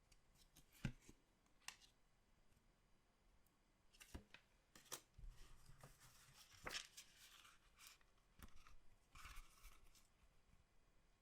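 Faint handling of trading-card packaging and cards: scattered sharp clicks and taps, with two spells of rustling, one around the middle and one near the end.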